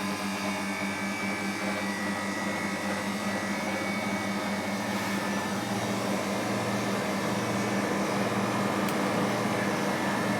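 Bristol hermetic refrigeration compressor in a condensing unit running with a steady electrical hum and odd noises, which the engineer suspects may be liquid refrigerant coming back to it.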